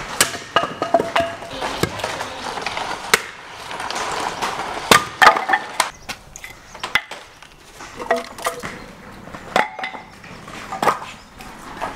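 Irregular sharp knocks and clatter of wooden logs and boards and plastic garden chairs being handled and set down.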